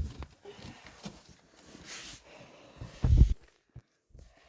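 Soft knocks and rustling, with one louder low thump a little after three seconds in.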